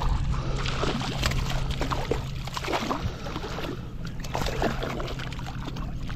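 Shallow water splashing and sloshing in irregular bursts as a small hooked sea robin thrashes at the surface.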